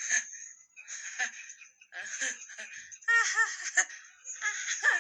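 Cartoon character laughing: high-pitched voice in several bursts of short, quick syllables.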